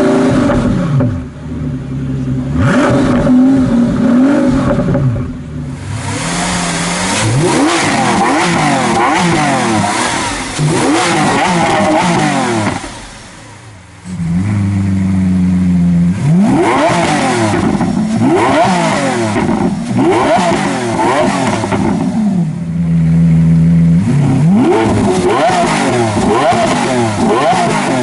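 For the first six seconds or so, a Pagani Huayra's V12 runs with mild revs. Then a Lamborghini Aventador's V12 is revved over and over in quick rising-and-falling blips. The blips are broken twice by a short spell of steady running.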